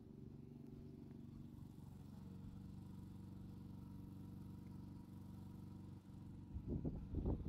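A cat purring steadily close to the microphone, with a few louder bumps near the end.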